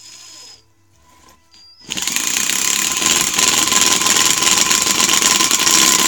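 A Chicago Electric 12V lithium-ion 1/4-inch hex impact driver hammering a drywall screw into wood. It starts about two seconds in and runs loudly for about four seconds as a fast, continuous rattle of impacts, until the screw head strips.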